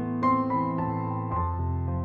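Soft background piano music: a slow melody of single struck notes over held low bass notes.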